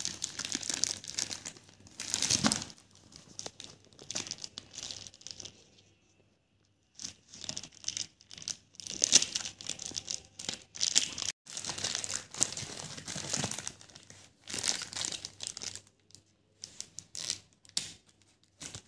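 Plastic courier mailer bag crinkling and tearing as it is pulled open by hand, in irregular bursts of rustling and ripping with a short pause about a third of the way in.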